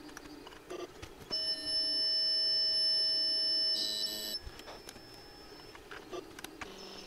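Clicks of an Atari 65XE's keys, then a steady buzzing tone from the computer through the TV speaker for about two and a half seconds, ending in a short higher burst, as a BASIC program is CSAVEd to the XC12 cassette drive. More key clicks follow, and a steady high tone starts near the end.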